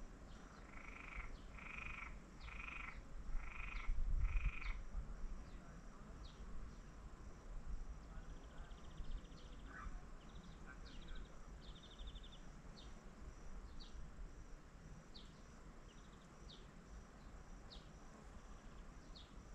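A frog croaking five times in a row during the first few seconds, in open wetland, followed by scattered short high chirps and a brief buzzy trill from small birds or insects.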